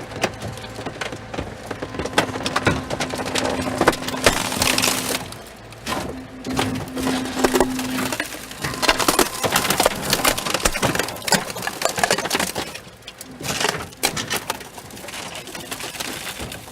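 A car being crushed in a car-crusher compactor: dense crunching, cracking and creaking of metal and glass under the press, with a steady machine hum under it for the first half that stops about eight seconds in. The crunching eases off near the end.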